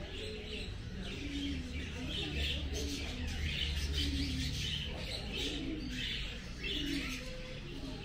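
Many caged birds chirping steadily, with short low cooing calls mixed in, over a low rumble.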